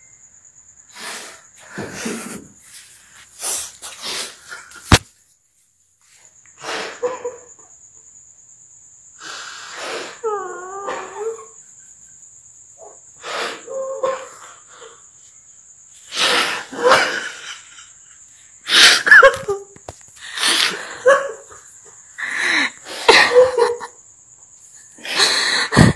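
A man crying hard: sobbing in breathy, gasping bursts a second or two apart, some with a wavering wail, louder over the second half. A faint steady high-pitched whine sits underneath, and a sharp click comes about five seconds in.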